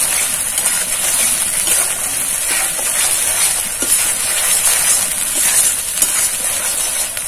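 Spice paste and grated coconut sizzling steadily in hot oil in an aluminium kadai, stirred with a spatula that scrapes the pan now and then. The paste is being fried down until the oil separates from it.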